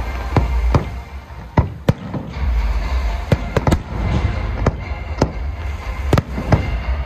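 Aerial fireworks display: about a dozen sharp bangs of bursting shells at irregular intervals, some close together, over a steady low rumble.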